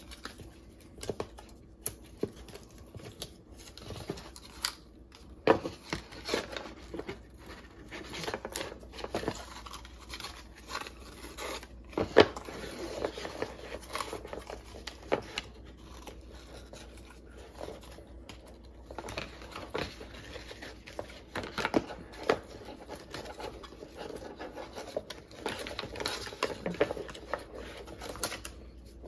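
Paper and cardboard packaging rustling and crinkling as a coiled laptop charging cable is worked free of its paper wrap. Irregular small clicks and taps run through it, with the sharpest snaps about five and twelve seconds in.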